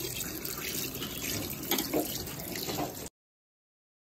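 Tap water running and splashing over hands into a ceramic washbasin during handwashing, cutting off suddenly about three seconds in.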